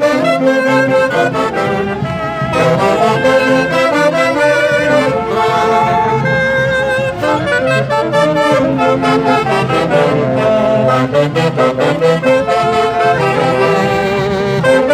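Live festival band music: saxophones and brass playing a lively melody in several parts over a steady beat, in the style of a central-Andean Mantaro valley orquesta.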